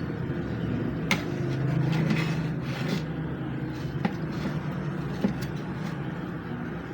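Hot-air rework gun blowing steadily as a capacitor is desoldered and fitted on a satellite receiver board, with a few small clicks of tools on the board about one, four and five seconds in.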